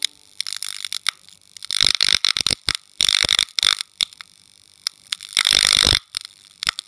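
Electric crackling and buzzing of a neon sign flickering on, a sound effect made of irregular stuttering bursts. Longer loud bursts come about two, three and five and a half seconds in.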